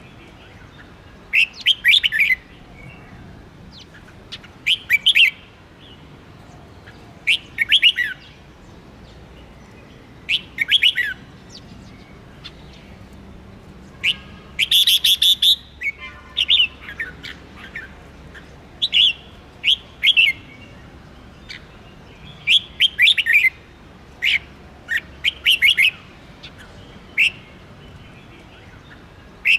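Caged red-whiskered bulbul singing in short bursts of chirping notes every two to three seconds, with one longer call about halfway through.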